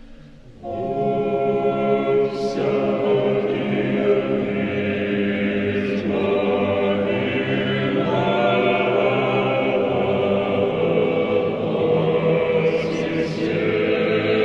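Church choir singing a slow hymn in long held chords, coming in loudly just under a second in.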